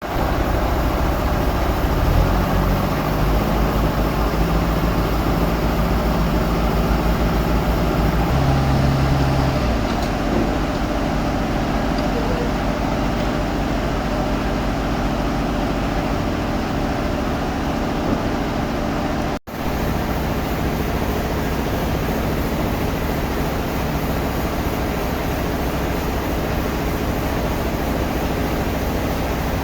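Sawmill machinery running steadily: a continuous motor hum under a dense mechanical noise. The sound cuts out for an instant about nineteen seconds in.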